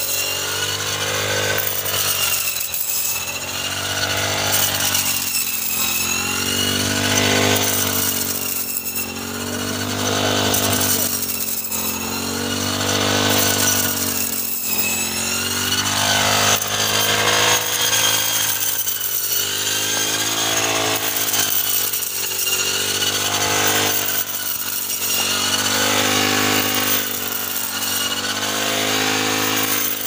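Backpack brush cutter's small petrol engine running hard as its blade head cuts standing wheat, its pitch rising and dipping every couple of seconds with each sweep through the stalks.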